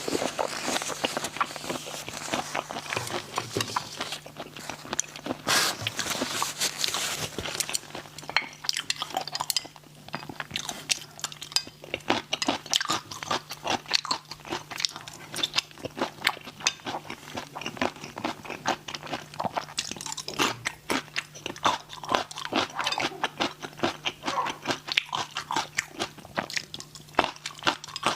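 Close-up eating sounds of spicy raw shrimp: continuous crunching, biting and wet chewing, with dense, irregular clicks throughout.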